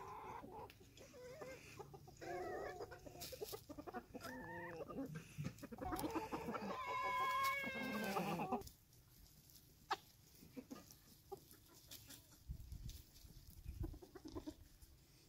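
Free-range chickens clucking, then a rooster crowing once, a long drawn-out call that cuts off about nine seconds in. After that only a few faint clicks.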